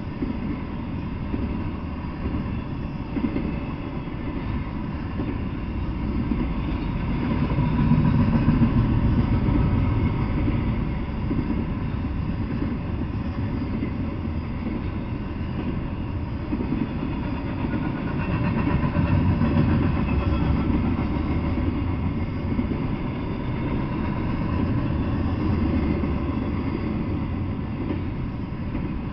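Double-stack intermodal freight train rolling past, its steel wheels running on the rails in a steady rumble. The sound swells twice, about a third of the way in and again about two-thirds in.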